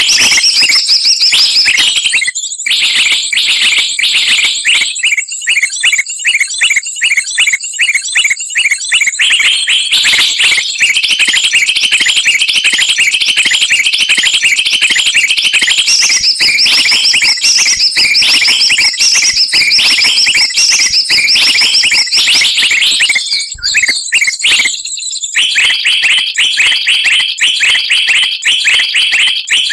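Bird-lure recording of many small songbirds calling at once: loud, rapid, high-pitched chirping and chattering, with two short breaks about three quarters of the way through.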